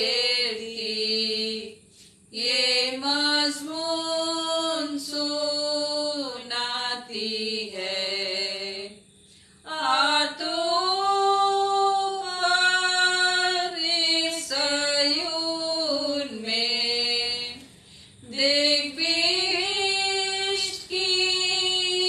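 Two women singing a Hindi Christian song together, unaccompanied, in long held notes with short pauses between phrases.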